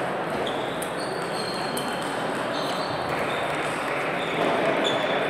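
Sports hall ambience during table tennis play: a steady background wash with scattered light clicks of table tennis balls from other tables and a few short high chirps.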